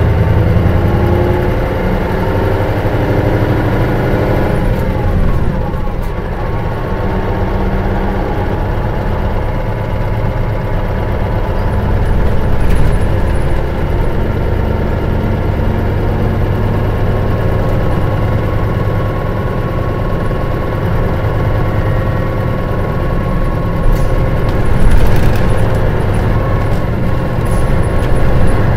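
Mitsubishi Fuso Aero Bus KL-MS86MP coach's diesel engine running as the bus drives, a steady engine drone whose pitch shifts about five seconds in, with the overall sound swelling briefly twice later on.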